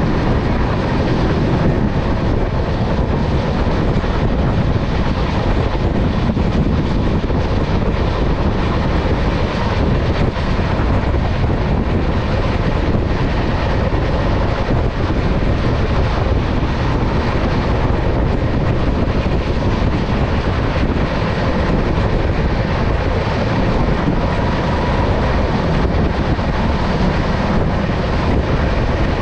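Steady, loud rush of wind across the microphone held at the open door of a moving train, mixed with the train's running noise on the track.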